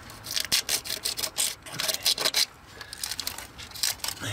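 Irregular short scrapes and clicks in quick bunches: old hose and plastic being scraped off a metal heater-hose pipe to bare it.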